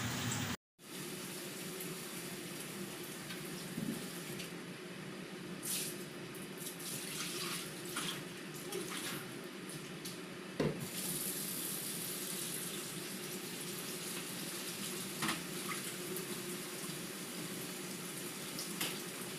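Water running steadily, with a few scattered knocks, during the rinse of a tiled kitchen floor. A brief cut to silence comes just under a second in.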